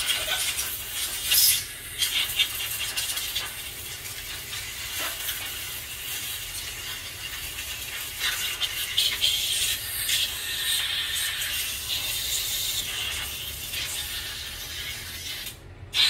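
Compressed-air blow gun hissing as it blows brake cleaner and grime out of a Tecumseh lawn mower carburetor, rising and falling in strength, then cutting off sharply near the end.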